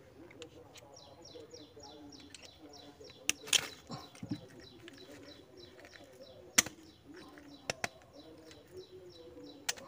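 Sharp metal clicks and taps, a handful of them spread out, from a wrench and bar working on the bolt of a combine harvester's track roller. A bird chirps quickly and repeatedly in the background.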